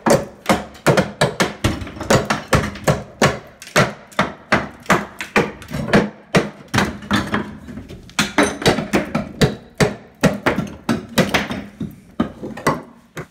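Rapid hammer blows, about three a second, on a steel pry bar driven into the mortar bed under a whirlpool tub, breaking the mortar loose.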